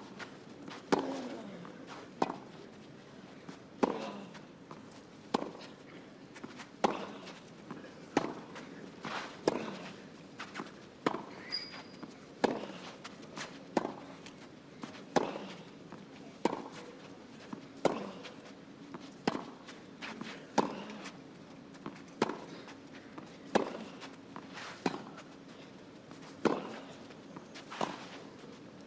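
Tennis ball hit back and forth with rackets in a long baseline rally on a clay court: a sharp racket hit about every one and a half seconds, with softer sounds between.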